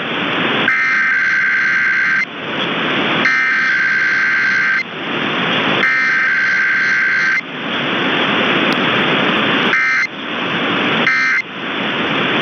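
Emergency Alert System SAME digital header: three warbling data bursts of about a second and a half each, made of two alternating high tones. Near the end come three short end-of-message bursts, as in a Required Weekly Test. A loud hiss fills the gaps between bursts.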